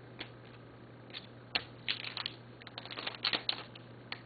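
Trading cards being handled and flipped through by hand: a scatter of light clicks and snaps, bunched about two to three seconds in, over a steady low hum.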